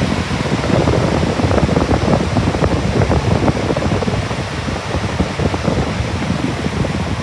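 Loud, steady rushing of air with gusty buffeting.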